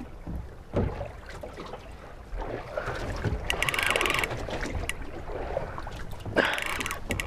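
Fishing reel's drag clicking in a rapid run for under a second about halfway through, then a few more clicks near the end, as line is pulled off by a hooked shark. Wind buffets throughout.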